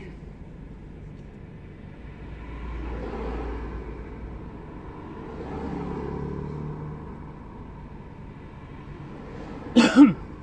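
Car cabin noise while driving: steady engine and road rumble that swells twice. Just before the end there is a short, loud vocal sound from the driver.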